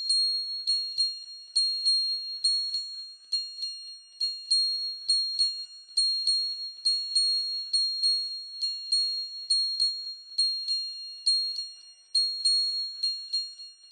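Very high-pitched bell-like chime tones struck over and over, about two or three a second at uneven spacing, each ringing briefly and fading fast. All the sound sits high, with nothing low underneath: a sound-enrichment track for tinnitus relief.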